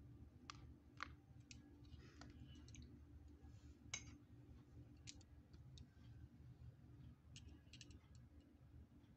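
Near silence over a low steady hum, with a dozen or so faint, irregular small clicks and ticks: two close together about a second in, a sharper one about four seconds in, and a quick cluster near the end.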